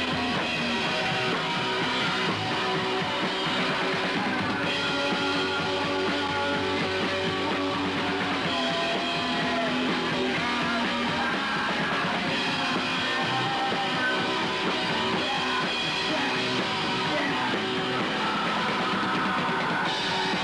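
Punk rock band playing loud and without a break: electric guitar and drum kit.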